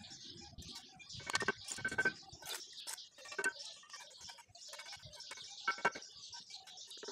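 Mason's trowel knocking and tapping red bricks into their mortar beds: several sharp, briefly ringing knocks, the loudest a pair about one and a half and two seconds in, with lighter taps and scraping between.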